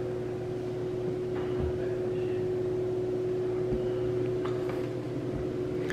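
Room tone: a steady mechanical hum with one droning tone held throughout, and a few faint low thumps.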